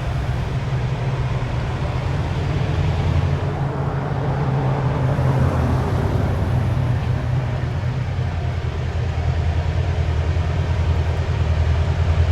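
EMD GP7 diesel-electric road-switcher locomotive working with its engine running in a steady low drone, getting louder toward the end as it approaches.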